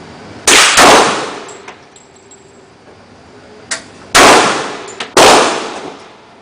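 Four shots from a Colt Combat Commander .45 ACP pistol, each with a short ringing tail. Two come in quick succession about half a second in, and two more follow about a second apart, near four and five seconds in.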